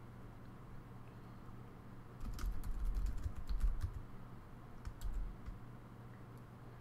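Typing on a computer keyboard: a quick run of key clicks starting about two seconds in and lasting about two seconds, then a few more keystrokes around five seconds, over a faint steady hum.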